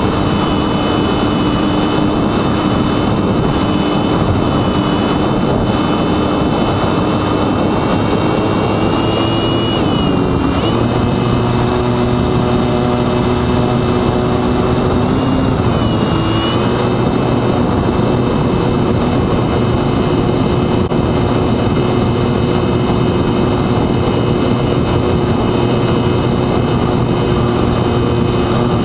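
Sunnysky X2220 brushless motor spinning a 9x7.5 propeller on a mini Talon model plane in flight: a steady whine over a rush of air. The pitch dips and comes back up twice, about ten seconds in and again about sixteen seconds in, as the throttle changes.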